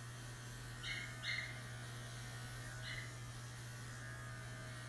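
Small cordless pet clipper buzzing steadily as it trims the hair between a dog's rear paw pads, with three short sharper buzzes at about one and three seconds in as the blade works into the pads.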